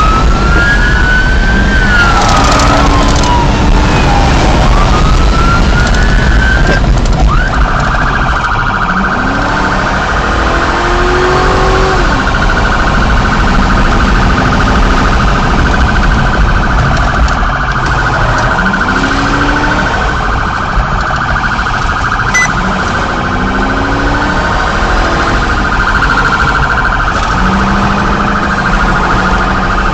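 Police patrol car driven hard, heard from inside the cabin: steady engine and road noise, with the engine's pitch climbing several times as it accelerates. A siren wails up and down during the first several seconds, then gives way to a steady high tone.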